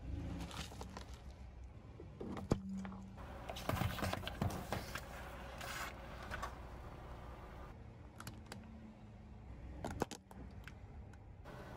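A car tyre rolling slowly over plastic baskets of dried pods and a food pouch, crushing them with irregular crackling, clicking and snapping and one sharp crack about two and a half seconds in, over a low steady hum.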